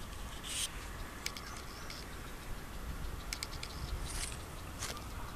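Steady low rumble with scattered sharp clicks and two short rustles, about half a second in and just after four seconds, typical of wind and handling on a handheld camera outdoors.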